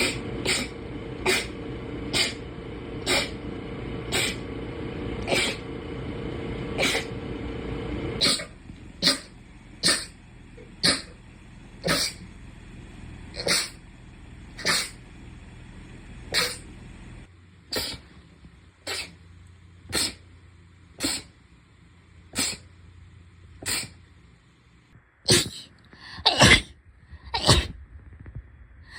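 A long run of short, sharp sneezes, about one a second, over a background hum that changes twice.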